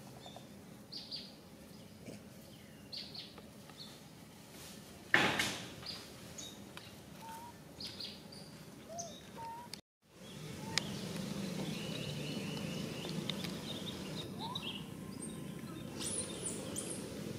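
Outdoor ambience with scattered short bird chirps and one sharp knock about five seconds in. After a brief dropout near the middle, the background becomes louder and steadier, with a quick trill and high chirps near the end.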